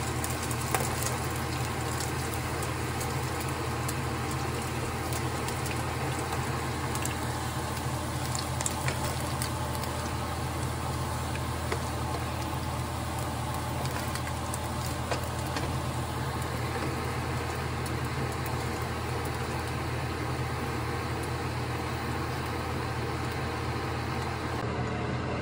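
Steady low motor hum that does not change, with a few light clicks of a plastic spatula against a non-stick frying pan and a glass bowl as fried pork cubes are moved.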